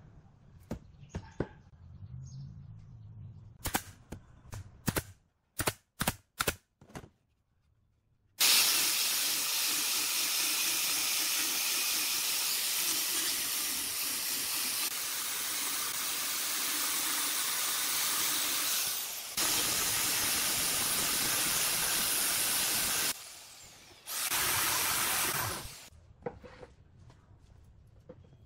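A few light wooden knocks and clicks, then an angle grinder with a sanding disc running steadily and loudly as it sands a glued wooden joint, stopping briefly and running again for a couple of seconds near the end.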